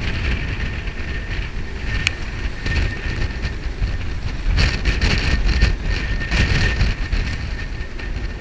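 Strong storm wind buffeting the microphone on the deck of a moored trimaran, rising and falling in gusts, with a thin steady whistle and a few sharp clicks.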